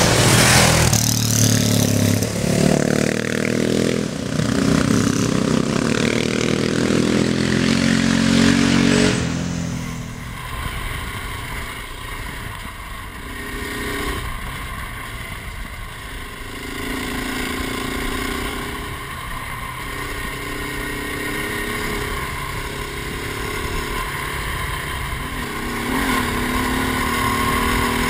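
Dual-sport motorcycle engine revving up and down as the bike rides past on a dirt track. About nine seconds in it changes to a steadier engine note heard from on board, with wind noise, the pitch rising and falling with the throttle.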